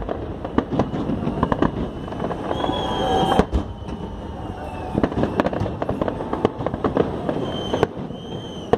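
Fireworks salute: a rapid, uneven series of bangs and crackling shell bursts, with the loudest bang about three seconds in. A few brief high tones fall in pitch among the bursts.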